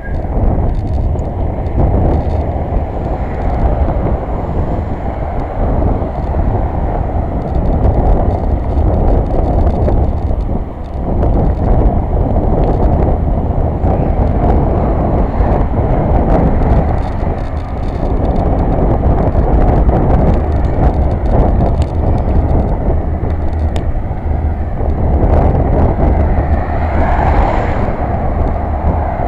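Steady wind and road rumble picked up by a camera riding on a moving bicycle, with many small knocks and rattles from bumps in the path.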